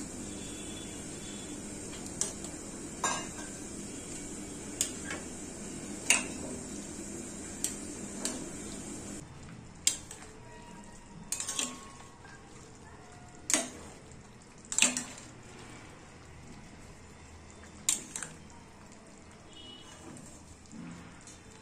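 Steel spoon clinking and scraping against a stainless steel karahi while stirring a thick curry, about a dozen sharp clinks at irregular intervals. A steady hiss runs under the first nine seconds, then drops away.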